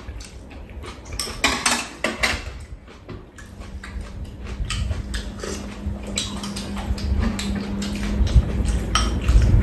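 Metal spoons and chopsticks clinking against bowls as two people eat, in scattered light clicks. A steady low hum comes in about three seconds in.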